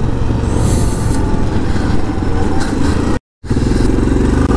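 Yamaha Grizzly 700 SE quad's single-cylinder engine running steadily on the move. The sound cuts out completely for a moment about three seconds in, then the engine is heard again.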